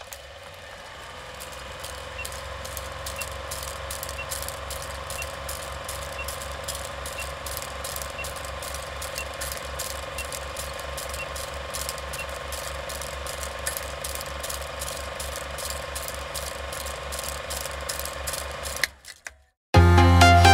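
Old film projector running, as a countdown-leader sound effect: an even, rapid mechanical clatter over a steady hum, with a faint short beep about once a second for several seconds. It cuts out near the end, and electronic dance music starts.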